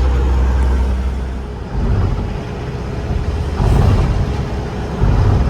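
Ambulance van on the move: steady engine and road noise, with a heavy low rumble that eases off just under two seconds in, then swells louder twice later on.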